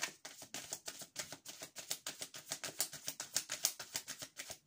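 A deck of tarot cards being shuffled by hand: a rapid, even run of card clicks, about eight to ten a second.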